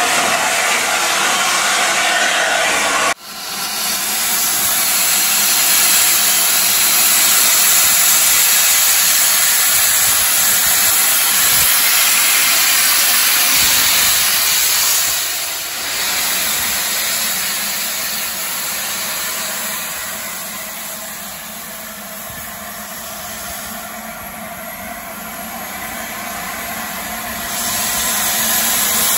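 Steady loud hiss of steam blowing from the cylinder drain cocks of LNER A4 Pacific locomotive 60007 Sir Nigel Gresley. It breaks off sharply about three seconds in, eases off through the middle and swells again near the end.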